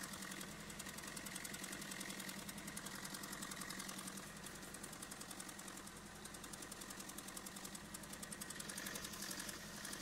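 Citroen 1.6 HDi DV6 diesel engine idling with rapid, even injector ticking and a steady hum. The engine has a leaking injector seal that is letting diesel out.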